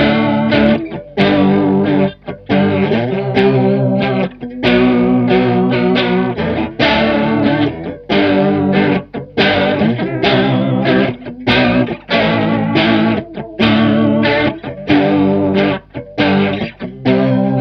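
Electric guitar from a Squier Starcaster's bridge pickup playing a repeating chord riff, lightly overdriven by a Boss BD-2 Blues Driver, through a Stoy Sound Choir Boy analog bucket-brigade chorus pedal. The chorus's rate and then its depth knob are turned up partway through.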